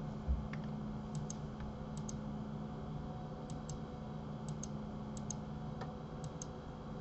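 Computer mouse button clicks: about six quick double clicks, each a press and release, spaced roughly a second apart, with a few softer single clicks. A faint steady low hum runs underneath.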